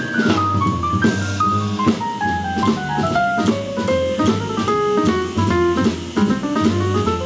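Jazz piano solo on a stage keyboard: quick single-note runs, mostly falling in pitch, over upright bass and a drum kit keeping time on the cymbals.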